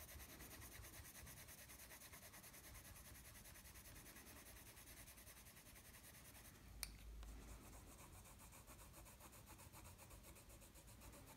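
Faint scratching of a Prismacolor coloured pencil shading on paper, with one light click about seven seconds in.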